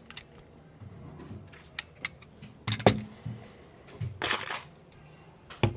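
Sharp metallic clicks and clatter from handling a SIG Sauer P320 pistol and its magazine, with a few louder clacks about three seconds in and again near the end.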